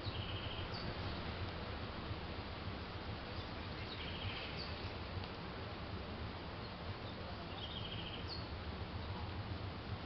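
A small songbird's short song repeated three times, about every three and a half seconds: a brief trilled note followed by a quick higher note. Under it runs a steady background hiss with a low hum.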